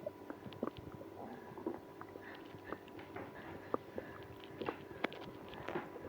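Human stomach and intestines gurgling, with faint, irregular small pops and squelchy gurgles scattered through, two sharper pops standing out about halfway and near the end. These are bowel sounds of irritable bowel syndrome, set off by drinking milk and prune juice.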